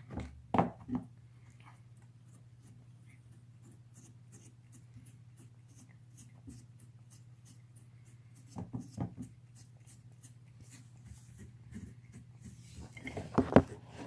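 A deaf cat gnawing on a bone: faint scraping and crunching, broken by short loud yowling cries at the start, about two-thirds of the way in, and again near the end. The odd cries may have something to do with the cat's deafness.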